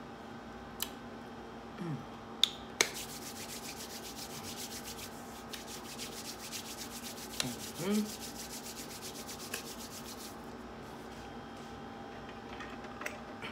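Rapid, even rubbing close to the microphone, many strokes a second for about eight seconds, starting after a few sharp clicks.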